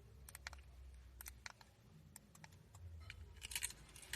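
Very faint scattered clicks and light rattles of car keys being handled, over a low steady hum that fades out about a second and a half in.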